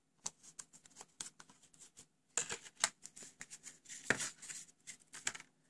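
Clear plastic blister packaging crinkling and clicking as it is handled and a ceramic heating element is slid out of its plastic tube: an irregular run of sharp crackles and clicks, the loudest a little past the middle.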